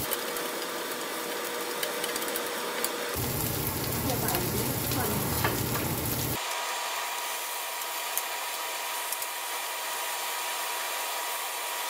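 Hot oil sizzling in a nonstick frying pan as scallions, ginger and garlic are stir-fried with a wooden spatula, with light clicks of the spatula on the pan.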